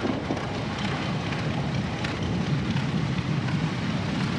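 1925 Avery 45-65 tractor running as it drives past: a steady low rumble with a crackly hiss over it.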